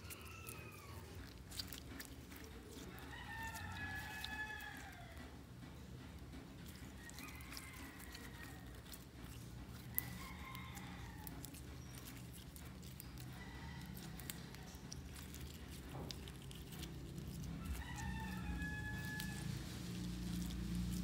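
Metallic slime being squeezed, kneaded and stretched by hand: sticky clicks and pops, with squeaky drawn-out tones now and then as air is pressed out of it.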